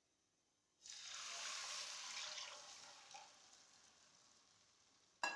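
Cow's milk poured into a hot kadai of carrots fried in ghee, sizzling as it hits the pan; the hiss starts suddenly about a second in and dies away gradually over the next few seconds. A short clatter near the end.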